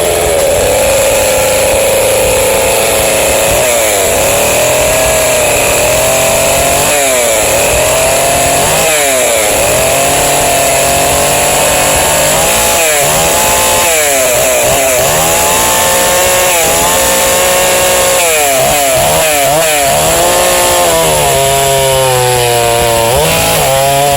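McCulloch SP125 direct-drive two-stroke chainsaw running loud, its engine revved down and back up again and again, every second or two.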